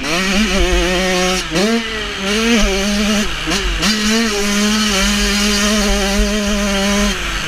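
Motocross bike engine at high revs, the rider working the throttle and gears: the pitch climbs, drops briefly at each shift or throttle lift, and climbs again, holding steady for a few seconds in the middle.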